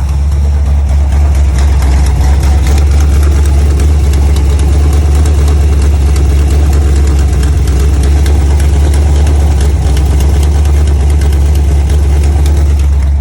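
Chevy 350 small-block V8 in a 1971 Nova running steadily at idle with a repeated ticking knock, a noise the owner cannot place between a bottom-end knock, a rocker arm and the flywheel.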